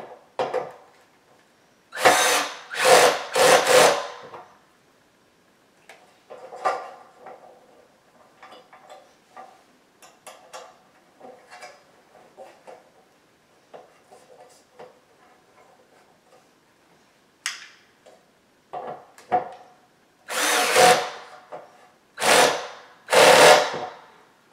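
Cordless drill with a hex bit driving bolts into a metal bed-frame rail in short bursts: three about two seconds in and three more near the end. In between, light clicks and rattles of metal frame parts being handled.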